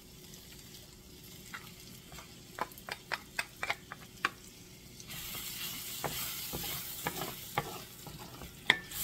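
Garlic and butter sizzling in a Le Creuset enameled cast-iron skillet while a wooden spatula stirs and scrapes, with a string of sharp taps against the pan. The sizzle grows louder about five seconds in.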